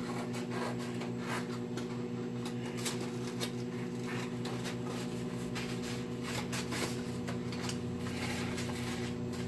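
Microwave oven running with a steady electrical hum, while scissors make scattered snips and rustles cutting cardboard packaging.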